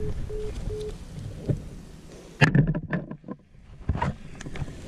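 Wind rumbling on the microphone, with scattered clicks and a loud cluster of knocks and clicks about two and a half seconds in.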